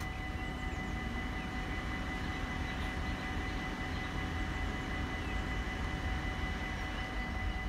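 Level-crossing warning bells ringing steadily while the barriers are down, over a low rumble.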